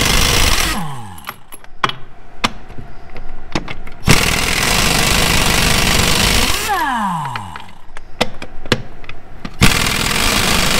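Aircat 1870-P 1-inch-drive pneumatic impact wrench hammering lug nuts loose on dry truck-wheel studs, in three bursts. After each burst the air motor whines down, and the socket and nut clink in the pauses.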